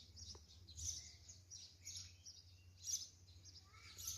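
Birds chirping: bursts of high chirps about a second in and again near three seconds in, with short thin calls near the end, over a faint steady low rumble.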